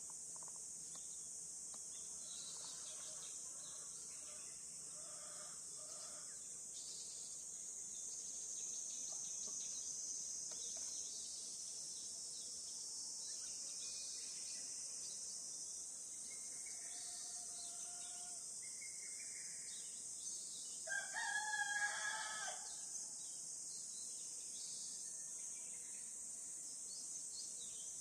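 A rooster crows once, loudly, about three-quarters of the way through, over a steady high-pitched insect drone and a few faint bird calls.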